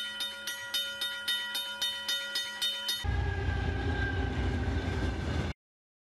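Japanese railroad-crossing warning bell ringing its rapid, evenly repeated "kan-kan" strikes; about three seconds in it gives way to the rumble of a passing train, which cuts off suddenly near the end.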